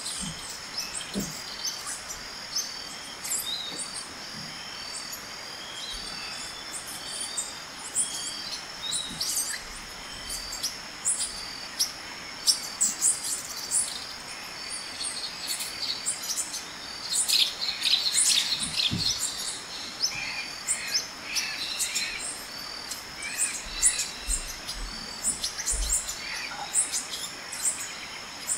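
Small birds chirping and singing, many short high calls overlapping, busiest about two-thirds of the way through.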